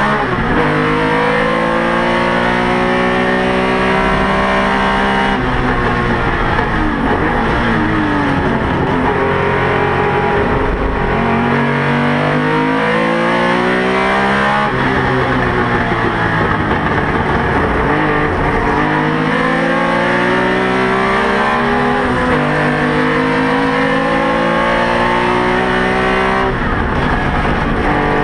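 Porsche 911 race car's flat-six engine under hard acceleration, heard from inside the car. The engine pitch climbs, falls back at each gear change and climbs again, with lifts and pick-ups through the corners.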